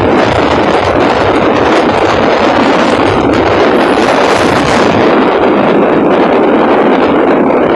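Strong wind: a loud, steady rushing noise.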